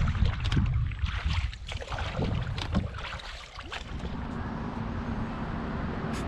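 Water splashing and lapping at a canoe with wind buffeting the microphone, in short irregular splashes over a low rumble. About four seconds in it gives way to a steadier, even outdoor hiss.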